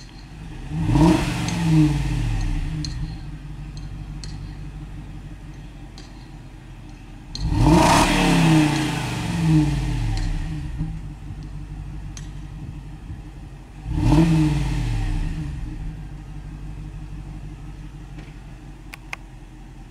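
Stock exhaust of a 2005 Jaguar XJR's supercharged 4.2-litre V8, idling and then blipped three times, about six seconds apart. Each rev climbs sharply and falls straight back to a steady idle; the first two have a quick second blip.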